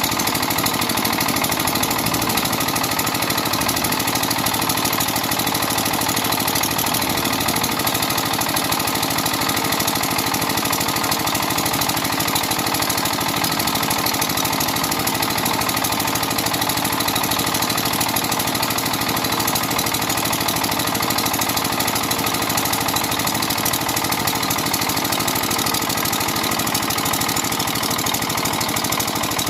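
Diesel engine of a JCB 3DX backhoe loader running steadily.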